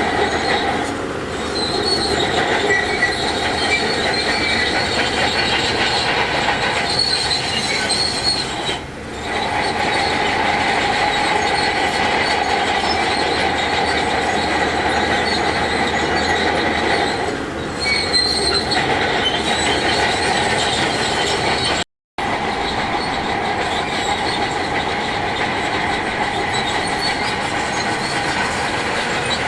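Heavy earthmoving machinery working, a continuous engine noise overlaid with steady metallic squealing and screeching, typical of a crawler bulldozer's steel tracks. The sound dips briefly a few times and cuts out for an instant about three-quarters of the way through.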